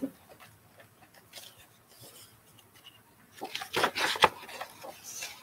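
Pages of a picture book being turned by hand: quiet at first, then a little over halfway through a second-long flurry of paper rustles and sharp flaps.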